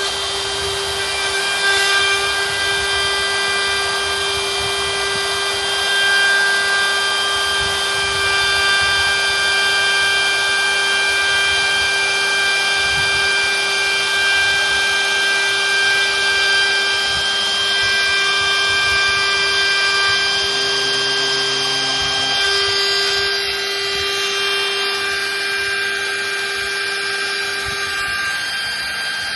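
Handheld electric router running at a steady high speed, cutting into the hardwood top along marked lines, most likely for an inlay recess. The whine eases slightly near the end.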